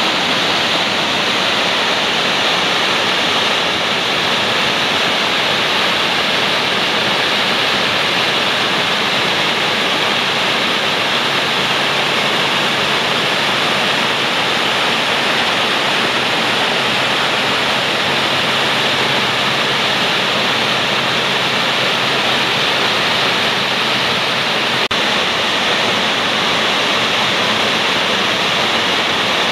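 Small waterfalls and a mountain stream rushing over stones: a steady rush of water that does not let up.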